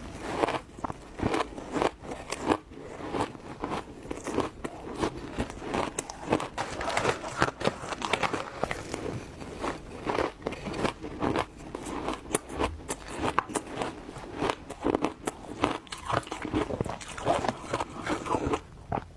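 Ice being bitten and chewed: a rapid, uneven run of sharp, crackly crunches as the ice breaks between the teeth.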